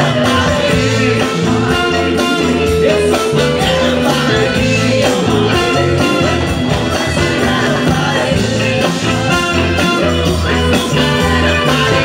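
Live band playing an amplified song: lead vocals over electric guitars, bass, keyboards, drum kit and congas.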